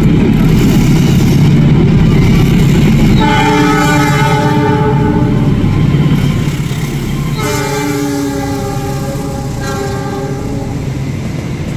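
CC 206 diesel-electric locomotive passing at the head of a passenger train, its engine running loudly. Its horn sounds two long chord blasts of about two seconds each, a few seconds apart. The engine sound eases after the locomotive goes by and the coaches roll past.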